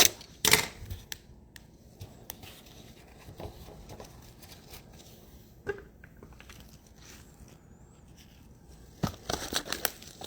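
A blaster box of trading cards being torn open and its packs handled: two sharp ripping tears at the start, a quiet stretch of faint rustling, then a run of crinkling and tearing from about nine seconds in.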